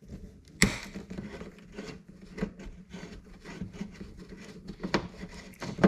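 Phillips screwdriver working at a screw in the plastic third brake light housing: small scraping and rubbing with scattered light clicks, and one sharper click about half a second in.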